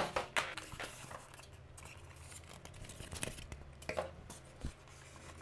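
Car speakers being unpacked from a white polystyrene foam insert: a sharp knock right at the start, then scattered light taps and rubs of the foam and speaker being handled.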